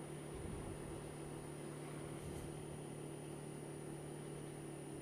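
Honda Dio scooter engine running at a steady speed under way, a low even hum over a steady hiss of wind and road noise.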